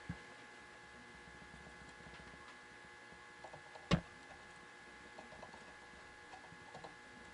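Quiet bench work soldering a motherboard: a faint steady electrical hum, a few small faint ticks, and one sharp click about four seconds in.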